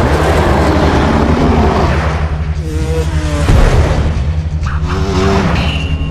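Motocross dirt bike engines revving, the pitch climbing twice, about halfway through and again near the end, over a steady low drone.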